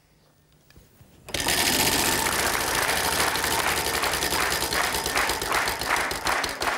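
Game-show prize wheel spinning: its pointer clacks rapidly against the pegs around the rim. The clacking starts suddenly about a second in and runs on fast and even, with the clicks spaced more clearly toward the end as the wheel slows.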